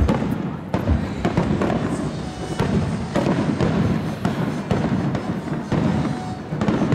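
Fireworks display: aerial shells bursting one after another in a dense, unbroken run of booms and crackling.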